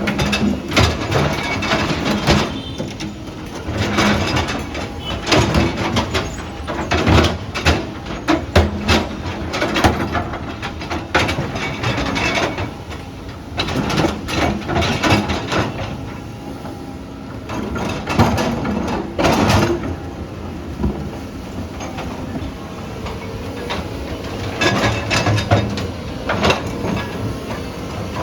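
Heavy tracked earthmoving machine working, with loud irregular metal clanking and knocking over a steady low engine rumble.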